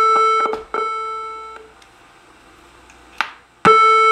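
Early NuTone IA28 electronic door-chime module sounding through a NuTone IM4406 master station's speaker: a bright chime tone is cut short, sounds again about a second in and dies away, then a click and a fresh chime tone near the end. This shows the master station's chime-module input works.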